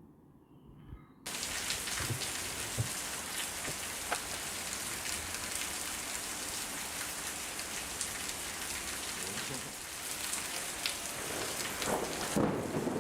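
Steady heavy rain, starting abruptly about a second in, with many small drop ticks; a low rumble, like distant thunder, comes in near the end.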